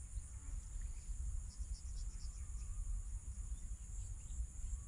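Steady high-pitched chorus of insects in the grass, over a low rumble, with a few faint short chirps.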